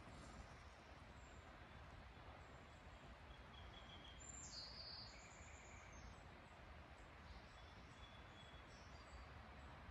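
Faint, scattered bird calls: a few short high chirps, the loudest a little over four seconds in, over a quiet low background rumble.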